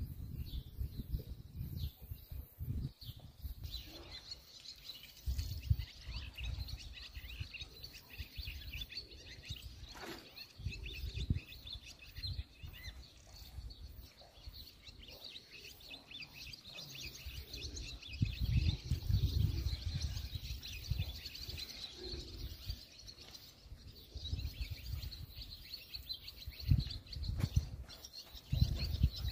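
Many birds chirping together in a dense, continuous chorus that starts about four seconds in, with irregular low rumbles underneath.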